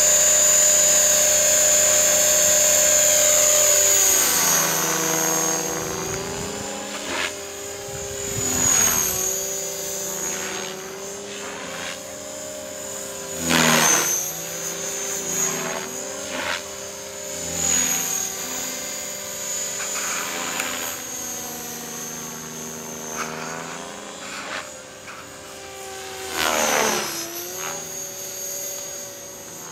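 Align 500 radio-controlled helicopter's rotor and motor whine. It is loud and steady for about four seconds while it hovers near the ground, then fainter and wavering in pitch as it climbs away and manoeuvres. Brief loud swells come several times, the loudest about halfway through.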